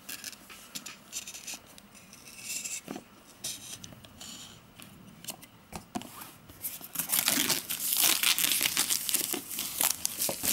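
A knife cutting the clear plastic shrink wrap on an iPad mini box, with scattered scratches and clicks, then from about seven seconds in the film is torn off and crinkled, much louder and continuous.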